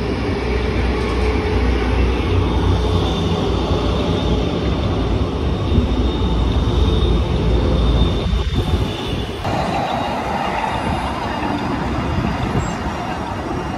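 An articulated low-floor electric tram passing close by: a heavy low rumble of steel wheels on rails with a thin, steady high-pitched whine. About nine seconds in, the sound changes abruptly to lighter street noise with a tram further off.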